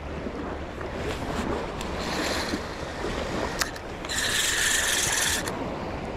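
Fishing reel being cranked in short spells, its gears whining, with a few sharp clicks between the spells; the sea washes in the background.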